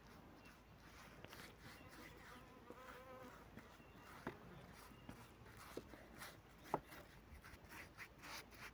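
Faint buzz of a flying insect passing the microphone, wavering in pitch, with a few soft clicks.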